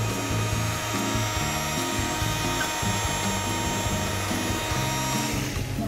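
Electric hand mixer running steadily with a constant motor whine, its beaters whisking cake batter; it switches off near the end.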